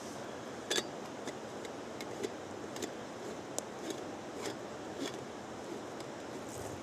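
Wood campfire crackling, with a dozen or so sharp, irregular pops over a steady background hiss.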